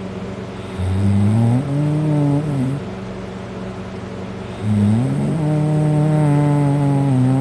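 A person snoring very loud in a drunken sleep: two long snores, each rising in pitch as it begins and then holding a steady tone, the second starting a couple of seconds after the first ends and still going at the end.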